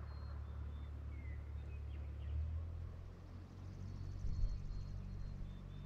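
Quiet outdoor ambience: a low steady rumble with faint bird chirps, and a faint high buzzing trill about halfway through.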